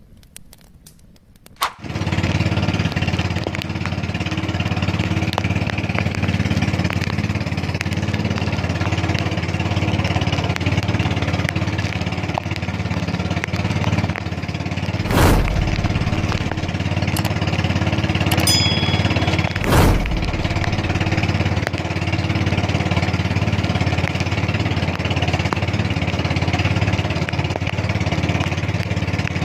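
Small engine of a motorized outrigger fishing boat running steadily under way. It comes in about two seconds in, and there are two thumps about halfway through.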